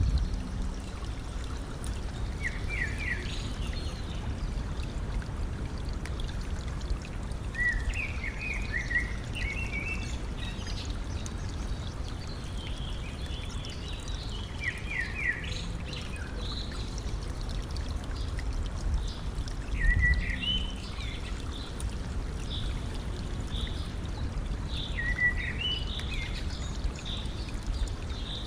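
Stream water trickling and flowing steadily, with a songbird in a tree singing short phrases of quick high chirps every five to seven seconds.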